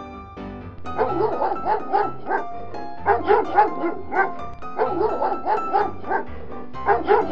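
Dogs barking in quick bursts of several barks each, repeating every second or so, over background music.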